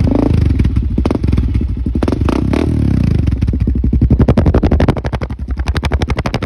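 Honda 400EX ATV's single-cylinder four-stroke engine running loudly through a Big Gun aftermarket exhaust in place of the stock muffler. It is blipped a few times in the first three seconds, then settles into a steady, even firing beat that eases off a little near the end.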